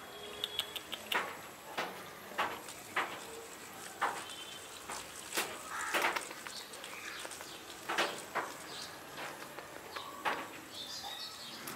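Cat chewing raw meat: irregular sharp wet clicks and smacks of its jaws, roughly one every half second to second.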